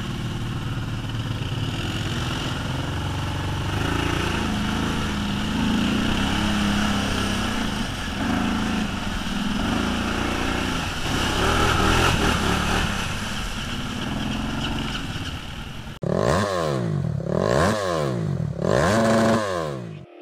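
ATV engine running from on board the quad, its pitch rising and falling with the throttle over rough, muddy ground. About four seconds before the end it cuts abruptly to a louder electronic effect of repeated rising and falling sweeps.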